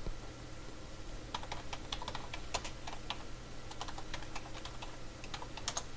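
Typing on a computer keyboard: an uneven run of key clicks starting about a second in and going on to near the end.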